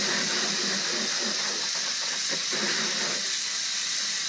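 Garden-hose spray nozzle jetting water onto an outboard motor's lower unit and splashing onto concrete, a steady loud hiss, rinsing off the degreaser.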